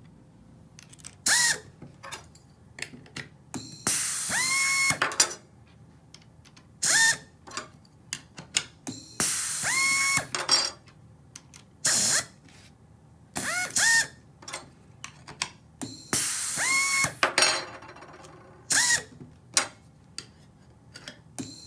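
Pneumatic rivet nut installation tool, a Cardinal 4090 (Bollhoff P2007), cycling through rivet nut installations in quick succession: repeated air-driven whirring bursts, some short and some lasting a second or two, each rising in pitch as the motor spins up and then holding. Sharp clicks from handling the tool and nuts fall between the bursts.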